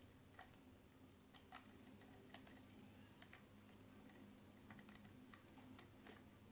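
Faint, irregular metallic clicks and ticks of a dimple pick working the pins of a Keso 2000 dimple lock under light tension, a dozen or so scattered ticks.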